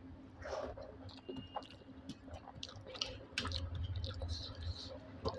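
A person chewing a mouthful of rice and egg curry, with wet mouth clicks and smacks scattered throughout. Fingers work the rice on a steel plate.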